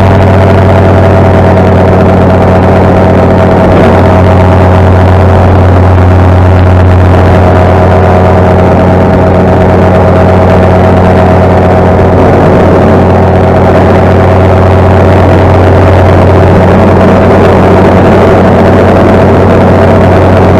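Parajet Zenith paramotor's two-stroke engine and propeller running steadily at a constant pitch, very loud at the microphone.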